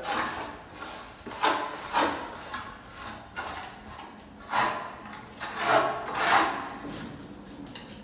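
Plastering trowel scraping wet cement mortar onto a wall, a string of rough strokes about one a second, loudest about four and a half and six seconds in, easing off near the end.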